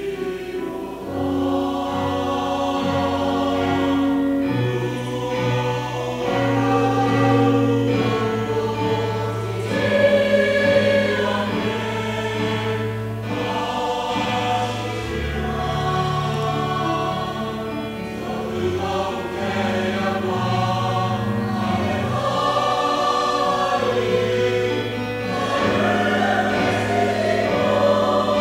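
A church choir of men and women singing together in parts, with long held notes that change every second or two.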